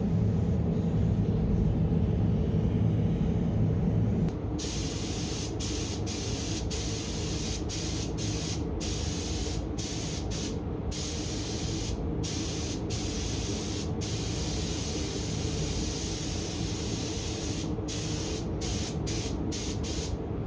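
Paint spray gun hissing as clear coat is sprayed onto motorcycle fairings. The spraying starts about four seconds in and is broken by many short pauses, over a steady low hum.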